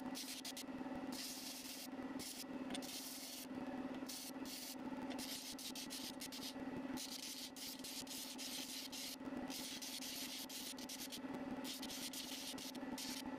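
Bench disc sander running with a steady motor hum while a small aluminum-and-epoxy pendant is pressed against the sanding disc, giving a gritty hiss that swells and drops every second or so as the piece is worked on and off the abrasive.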